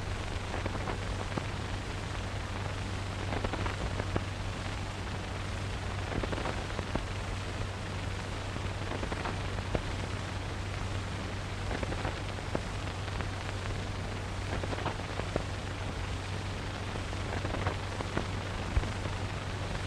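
Steady hiss with a low hum and scattered crackles and pops, and no music or speech: the background noise of an old 1930s optical film soundtrack.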